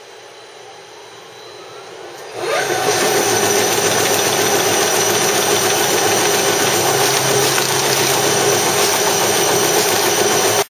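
Paper sorting machine starting up: a faint motor whine rises in pitch for about two seconds, then the machine comes up to speed with a sudden jump to a loud, steady mechanical running noise.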